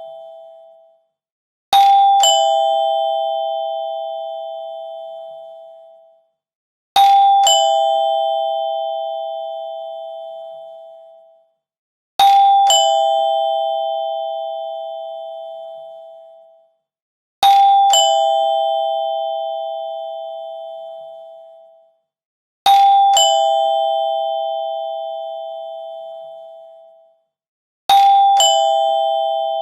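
Two-tone chime doorbell ringing ding-dong six times, about every five seconds: a higher note, then a lower one half a second later, each left to ring out and fade.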